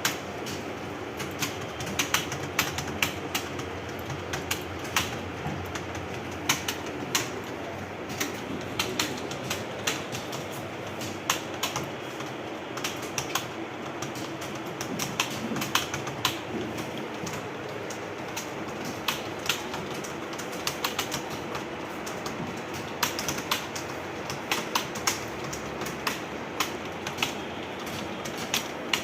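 Computer keyboard typing: a rapid, irregular patter of key clicks over a steady room hum, with louder key strikes scattered throughout.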